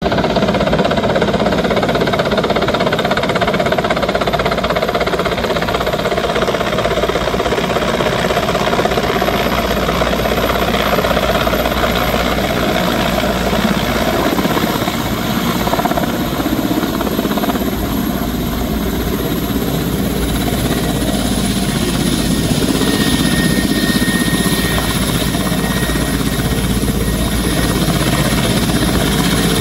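Mil Mi-17 transport helicopter's twin turbine engines and rotors running loud and steady as it comes in and lands, the level dipping slightly midway.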